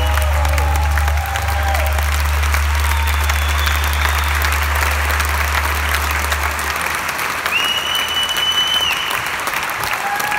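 Concert audience applauding steadily in a hall. A low steady hum from the stage cuts off about seven seconds in, and a high whistle sounds briefly just before that point.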